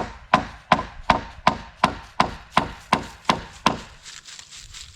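A hammer driving a nail into a wooden board with even blows, about three a second, each with a short metallic ring; the strikes stop a little under four seconds in.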